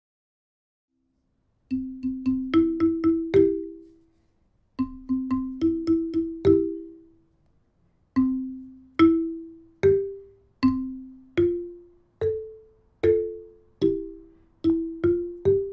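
Instrumental music: a simple, slow melody of single struck notes, each starting sharply and ringing out as it fades. It begins after a second or two of silence, and the phrases are separated by two short pauses.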